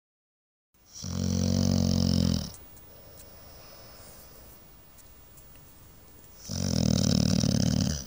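A small pet dog snoring in its sleep: two long snores about five seconds apart, each lasting about a second and a half.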